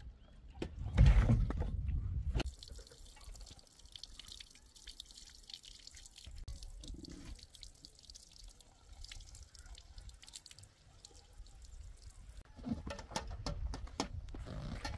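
Liquid dripping and being poured in short spells, with light clicks and knocks of handling and a louder low thump about a second in.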